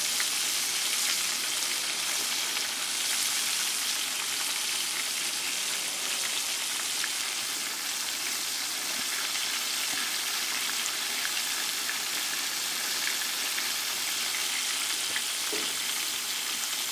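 Breaded pork steaks frying in a wide pan of hot oil, a steady sizzle. They are nearly done on the second side.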